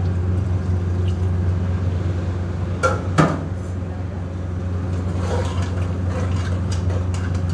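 Metal spoon against an open aluminium pressure-cooker pot of stew: two sharp clinks about three seconds in, then lighter clicks as the stew is stirred near the end. A steady low hum of kitchen machinery runs underneath.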